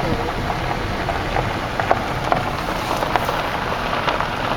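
Car tyres rolling slowly over an unpaved gravel road, heard from inside the car: a steady crackling hiss with scattered small pops over a low rumble.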